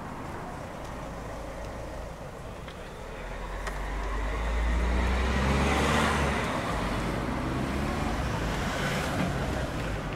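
A road vehicle passing close by, its engine rumble and tyre noise building to a peak about six seconds in and then easing off.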